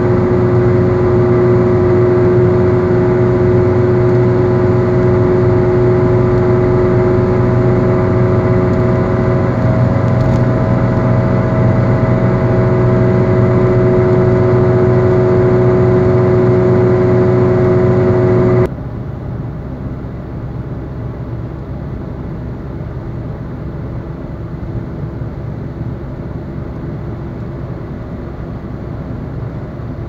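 A car's badly worn wheel bearing in its final stage, just before replacement, heard from inside the cabin while driving: loud road noise carrying a steady drone of several tones. About two-thirds of the way through it cuts off suddenly to much quieter, even road and tyre noise from the same car after the bearing was replaced.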